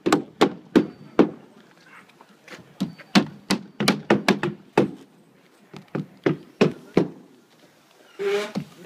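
Hammer driving roofing nails through asphalt shingles into a plywood deck: quick runs of sharp strikes, about three or four a second, with short pauses between the runs.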